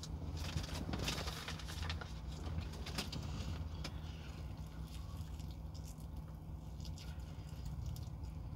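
Thin plastic food gloves crinkling as they are pulled on during the first few seconds, then crunching bites of crispy fried chicken near the end. A steady low engine hum runs underneath.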